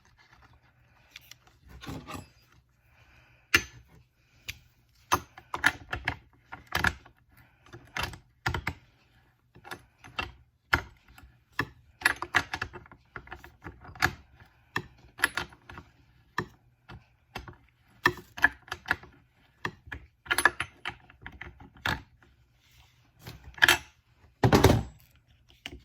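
Spark plug being put back into a McCulloch Pro Mac 610 chainsaw and tightened by hand: irregular metal clicks and clanks of the plug and tool against the saw, with a heavier thunk near the end.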